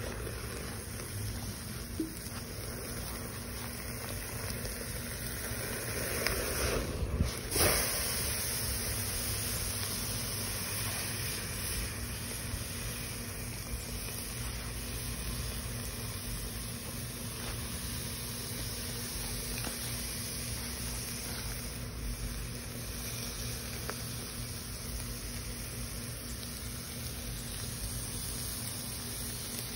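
A thick cut of meat sizzling on the grate of a charcoal kettle grill: a steady, high hiss of fat and juices over the hot coals, with a low rumble of wind on the microphone and a brief louder disturbance about seven seconds in.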